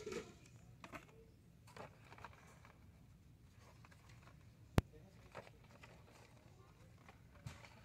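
Carded action figures in plastic blister packs being handled and flipped on a pegboard hook: faint scattered plastic-and-card rustles and ticks, with one sharp click a little under five seconds in.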